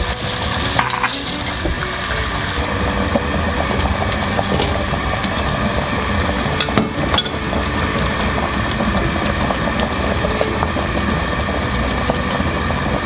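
Kitchen cooking sounds: a steady noisy hiss with scattered metal clinks, as of a utensil against a pan or dish.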